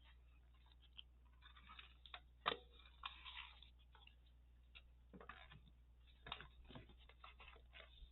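Faint handling sounds of a notebook insert being fitted into a leather traveler's notebook on its elastic string: scattered light clicks and paper and leather rustles, with one sharper click about two and a half seconds in.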